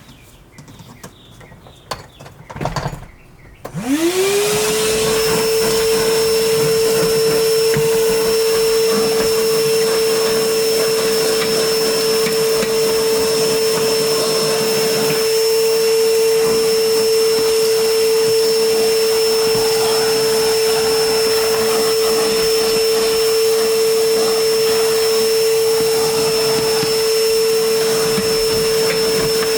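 A few knocks and handling sounds, then a vacuum cleaner switched on about four seconds in: its motor spins up quickly to a steady pitch with a high whine and keeps running evenly while vacuuming car carpet.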